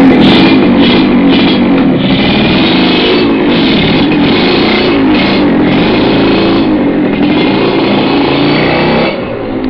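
Loud rock-style background music with guitar. It drops in level about nine seconds in.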